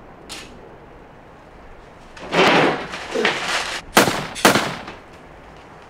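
Staged fight sound effects: two swishing rushes, then two sharp hits about half a second apart as a paper takeout bag is swung into a man's head.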